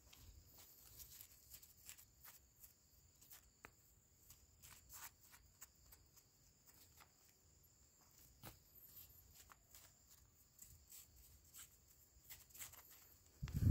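Faint scattered ticks and scratches of compacted soil being loosened by hand with a small stick around a seedling planted through plastic mulch film, with one louder low thump near the end.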